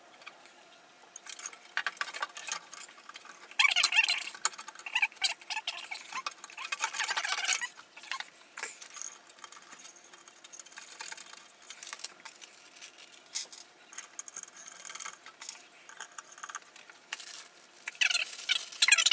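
Irregular scraping, rattling and small clicks of hands working a motherboard into a metal PC case.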